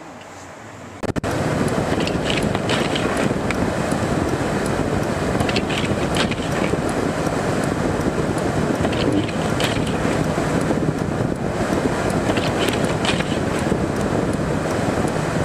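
Commercial vehicle driving on a snow-covered road in a blizzard, heard from inside the cab: a loud, steady rush of driving and wind noise with scattered ticks and clicks throughout. The sound jumps up suddenly about a second in, after a quieter opening.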